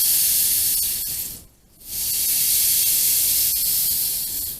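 Rainstick tipped over twice, its beads trickling down inside with a steady rushing hiss. The first cascade ends about a second and a half in, and after a short pause the second runs until the stick stops near the end.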